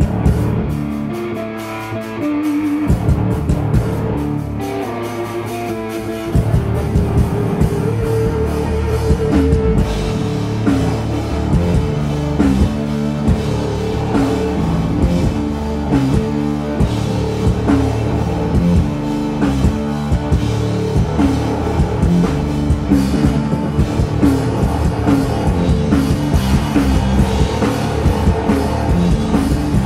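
Live rock band playing, with electric guitar, bass guitar and drum kit. A sparser guitar-led passage builds into the full band about six seconds in, with steady, dense drumming from there on.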